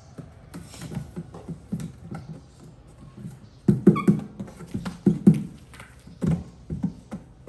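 Irregular thumps and taps of a baby monkey's hands and feet on a hollow box as it scrambles about, loudest around four and five seconds in, with a short high squeak about four seconds in.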